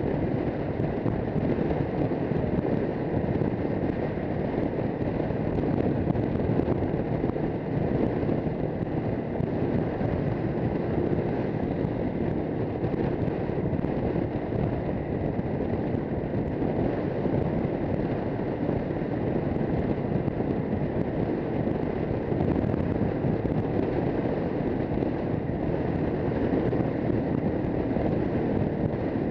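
AKT TT 250 Adventour motorcycle's single-cylinder engine running at a steady cruise through city traffic, mixed with wind noise on the microphone.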